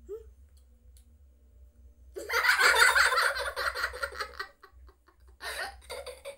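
A young child laughing: a long burst of laughter starting about two seconds in, then a shorter burst near the end.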